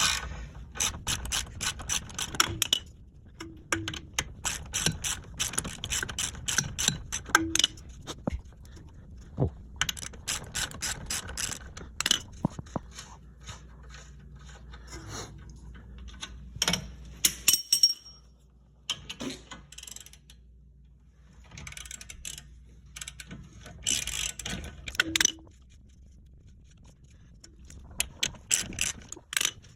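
Ratchet wrench clicking in repeated bursts as 22 mm nuts are backed off a car's strut bolts, with quieter pauses between the bursts.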